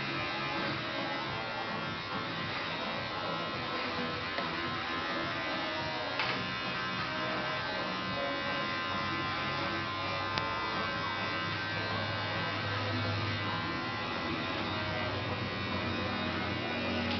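Electric hair clippers running with a steady buzz while cutting short hair.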